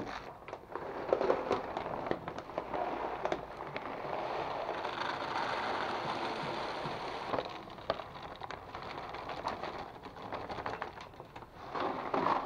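Drools Focus dry puppy kibble being poured from its bag into a plastic-bag-lined storage bin. Scattered pellets patter and rattle at first, then a steady rush of pouring runs for about three seconds and stops suddenly, followed by more scattered rattling and rustling of the bag.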